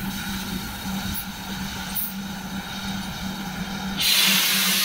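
Designed logo-sting sound effect: a steady low electronic hum with a faint pulsing tone, then about four seconds in a sudden loud rushing hiss that holds as the logo is revealed.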